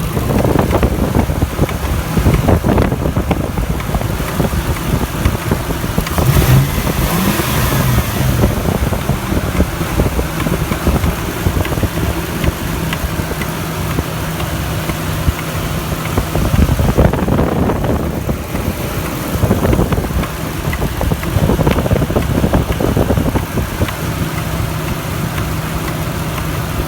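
Toyota 1UZ-FE VVT-i 4.0-litre V8 idling and revved up several times, with a knock the owner cannot identify. It settles back to a steady idle between the revs and near the end.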